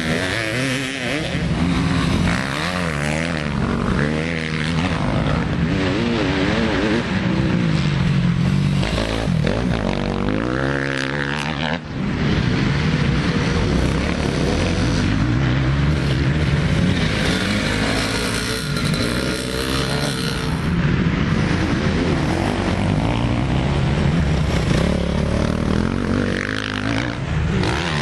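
Motocross dirt bike engines revving up and down as the bikes are ridden hard around a dirt track, pitch rising and falling with the throttle and gear changes. There is an abrupt break about twelve seconds in.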